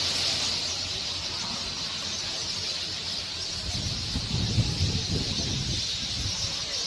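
Many birds chirping together in a steady, dense chorus. A low rumble comes in about halfway through.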